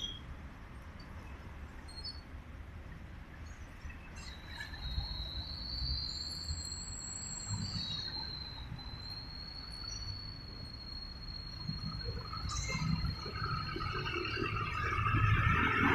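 Road traffic passing on a highway, a low rumble of cars and vans going by. A steady high-pitched whine sits over it from about a quarter of the way in until about three quarters through. Near the end the traffic grows louder as a heavier vehicle approaches.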